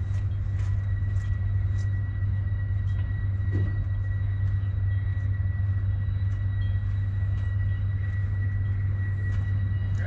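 A steady low mechanical rumble, like a machine running, unchanged throughout, with a faint steady high whine above it.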